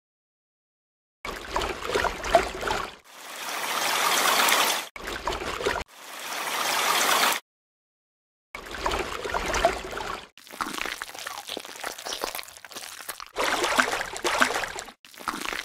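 Liquid pouring and trickling in short edited bursts: some swell up and cut off abruptly, others crackle and splash unevenly, broken by brief silences.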